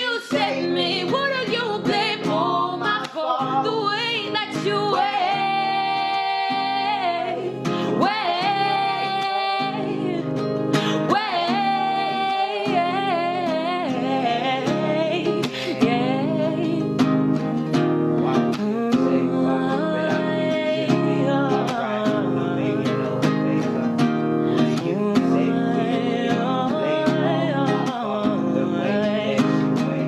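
Capoed acoustic guitar being picked and strummed, with singing over it that holds long notes in the first half.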